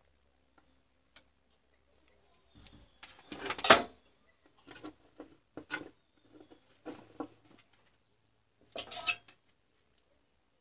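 18650 lithium-ion cells being handled and set down on a workbench: a scattered series of knocks and clinks of the cells against each other and the bench, the loudest about three and a half seconds in, with more around five to seven seconds and a cluster near nine seconds.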